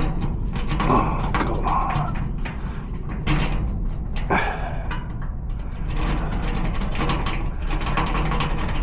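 Small metal clicks and scrapes of tools working inside a garage door lock cylinder, as the lock is being picked.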